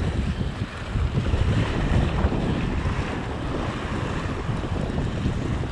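Wind buffeting the microphone in uneven gusts over the steady wash of sea surf churning against rocks.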